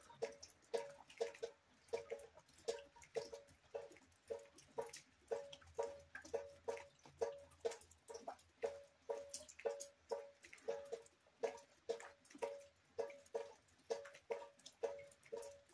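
Water drops falling one by one into a bucket, each landing as a short pitched plink, about two a second at an uneven pace.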